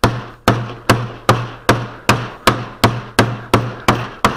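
Putty mallet beating a lump of old glazing putty on a board, a steady run of dull blows about two and a half a second, kneading the stiff, short putty and working in a little linseed oil.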